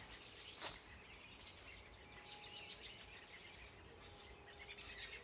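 A large flock of small songbirds calling in the trees: many faint, high, overlapping chirps with a few whistled downward notes. A single short, sharp sound comes about two-thirds of a second in.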